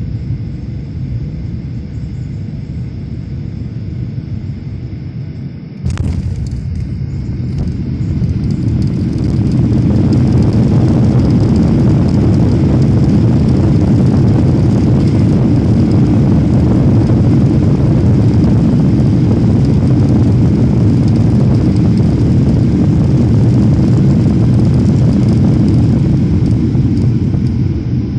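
Jet airliner landing, heard from inside the cabin: a steady engine rumble, then a sudden jolt about six seconds in as the wheels touch down. The engines then build into a loud, steady roar of reverse thrust as the aircraft slows on the runway, easing off near the end.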